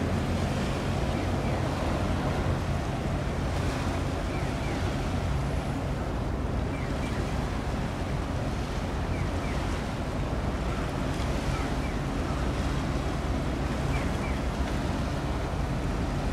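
Steady wind buffeting the microphone over the wash of water in a strait, with a low rumble underneath. Faint short chirps recur every second or two.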